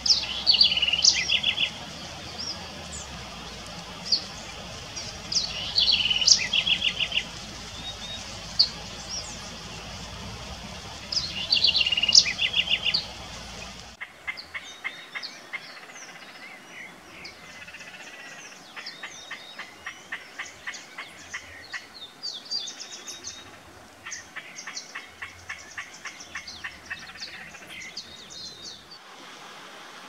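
Southern house wren singing: three loud phrases, each ending in a fast trill, over a low steady rumble. About halfway through, a henna-capped foliage-gleaner takes over with repeated runs of rapid, sharp notes.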